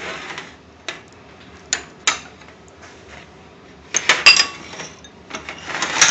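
Metal tandoor skewer clinking and scraping against a glass mixing bowl as marinated paneer cubes are pushed onto it. Several sharp clicks, and a louder cluster of clinks with a brief ring about four seconds in.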